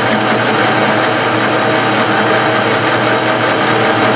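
Metal lathe running steadily, its chuck spinning a steering sector shaft: a constant hum of motor and gearing. A few faint high clicks near the end.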